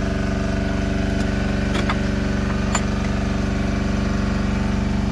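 Combustion engine idling steadily, with two sharp clicks about two and three seconds in.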